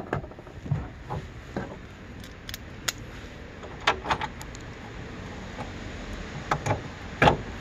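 Scattered small metallic clicks and clinks as a fender washer and nut are handled and fitted onto a fender bolt by hand, with the loudest click near the end.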